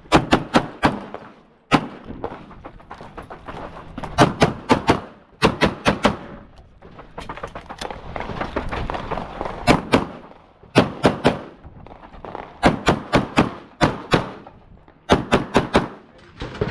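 Pistol gunfire from a shooter running a timed competition stage: quick strings of two to five shots with short pauses between the strings, about forty shots in all.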